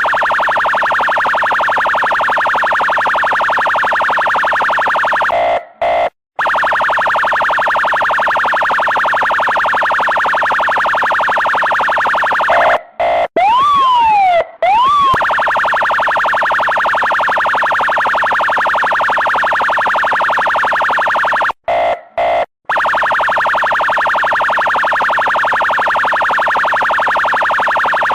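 Police siren sound effect in a rapid warble mode, its pitch flicking up and down many times a second, with brief dropouts. About halfway through it switches for a couple of seconds to a slow wail that rises, falls and starts to rise again, then the rapid warble resumes.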